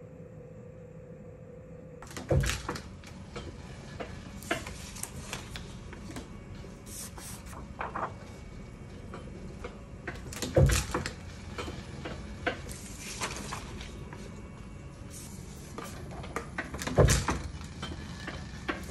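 Irregular clicks and taps of paper and metal parts being handled at a Chandler & Price Craftsman platen letterpress, with three heavy knocks: a couple of seconds in, midway, and near the end. The press is not running steadily.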